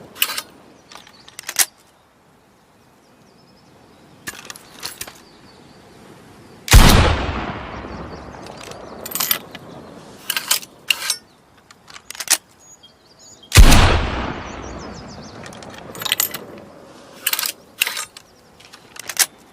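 Two blunderbuss shots about seven seconds apart, each a loud blast with a long fading echo. Short clicks and knocks come before, between and after the shots.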